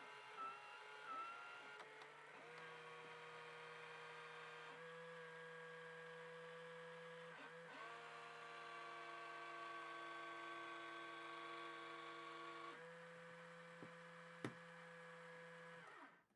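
Faint background music of held electronic chords that shift every few seconds, sliding briefly between them, fading out near the end.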